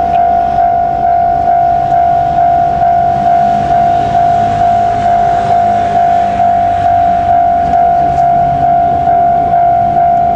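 Japanese railway level-crossing warning alarm ringing, an electronic clang repeating about twice a second, with a low rumble underneath.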